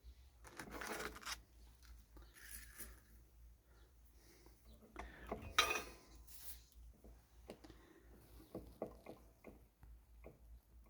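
Light clicks, taps and brief scraping from handling small electronic components and hand tools while assembling a kit, with a sharper click about five and a half seconds in and a run of small ticks near the end.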